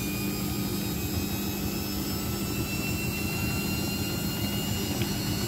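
Old Samsung front-loading washing machine in its spin cycle: a steady motor hum with a whine that slowly rises in pitch as the drum turns. The drum is still full of suds that are not draining away.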